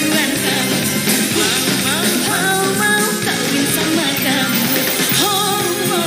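A woman singing a pop song over full backing music, her voice moving in wavering, ornamented runs.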